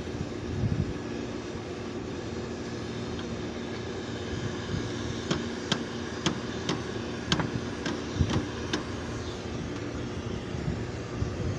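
Air-conditioner compressor running with a steady hum; the unit is a replacement compressor with a failing bearing. In the middle there is a quick run of about eight sharp clicks.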